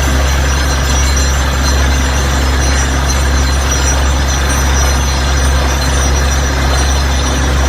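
Small DC motor of a homemade mini borewell drilling rig running steadily, with a constant low hum under an even hiss.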